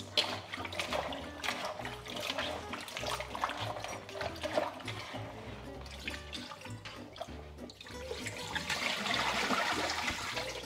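Water splashing and trickling as green beans are rinsed by hand in a bowl under a running kitchen tap, with many small splashes. A steadier rush of running water comes in near the end as the bowl is tipped under the stream. Soft background music plays underneath.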